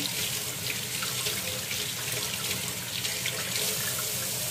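Steady sizzling hiss of jumbo shrimp cooking on an open electric contact grill, with a few faint crackles.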